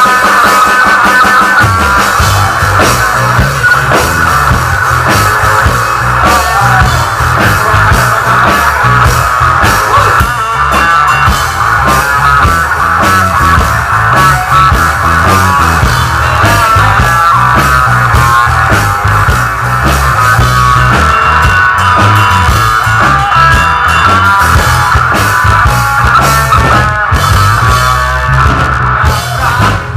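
Rock band playing an instrumental passage on guitar and drum kit, with the low end and drums coming in about a second and a half in.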